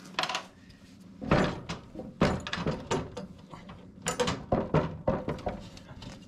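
Metal clinks and knocks from hands working the R-pin and washer off the Toro TimeCutter's steel deck-lift linkage, with several sharp clanks, the loudest a little over a second in and about two seconds in.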